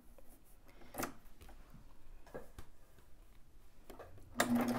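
A few light handling clicks, then about four seconds in a combination serger/coverstitch machine starts stitching knit fabric with a steady hum.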